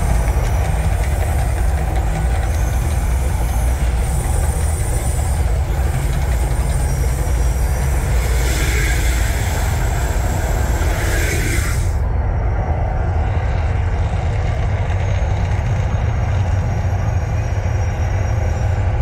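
The Mirage Volcano's eruption show: a loud, deep, steady rumble with a hissing rush over it. The hiss cuts off abruptly about twelve seconds in, and the rumble carries on.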